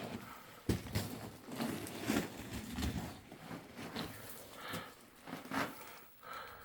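Irregular scuffing, knocking and rustling of people moving over loose rock and gravel in a mine passage, with a sharper knock about a second in.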